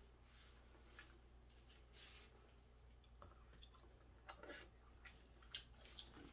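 Near silence, with a few faint wet clicks of a person chewing raw hairtail sashimi and handling wooden chopsticks.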